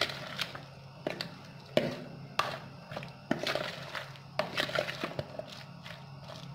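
Metal spoon stirring thick gram-flour batter with sliced onion and potato in a plastic bowl: irregular clacks and scrapes of the spoon against the bowl, with wet squishing of the batter.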